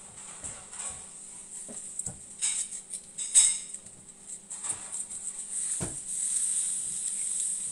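Knife cutting through the crisp skin of a roast Peking duck: irregular crunching and crackling of the skin, with knocks of the blade against the wooden cutting board, a sharper one near the end.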